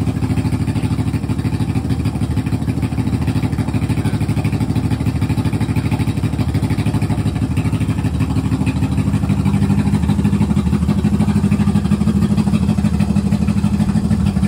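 1972 Honda CL350's air-cooled parallel-twin engine idling steadily with a fast, even exhaust pulse, warming up after a cold start. It gets a little louder from about nine seconds in.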